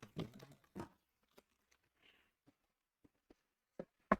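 Cardboard boxes and packaging handled by hand: a few light taps and knocks, bunched in the first second and again near the end.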